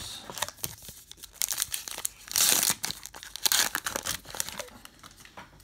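A baseball card pack's crimped foil wrapper crinkling and tearing as it is ripped open by hand, loudest a little before halfway through.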